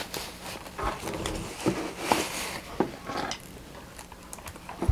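Rustling and crinkling of a thin foam packing sheet being unwrapped from a two-way radio's display head, with scattered light handling taps and a sharper knock at the end.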